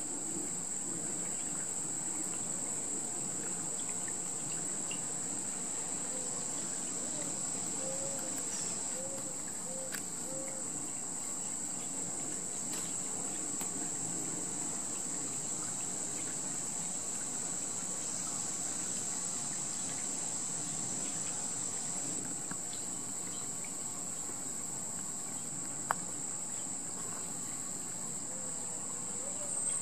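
A steady, high-pitched chorus of insects, unbroken and even in level.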